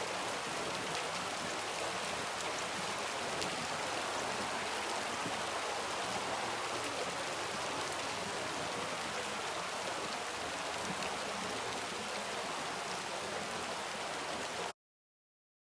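Soft, steady rain with scattered individual drops ticking, which cuts off suddenly near the end into silence.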